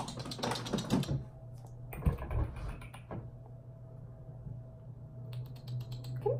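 A person calling a cat with soft hissing 'pss-pss' and kissing-click sounds, mixed with the crinkle of plastic cat-treat wrappers being handled; the sounds come in short bursts with a quick run of clicks near the end.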